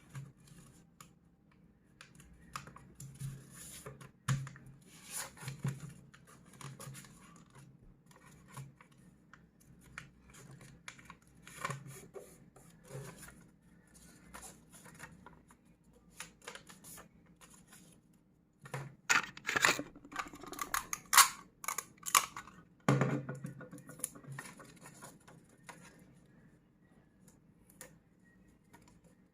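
A sheet of paper being handled and folded by hand: scattered rustles and crease strokes, with a louder, busier stretch of crinkling about two-thirds of the way through.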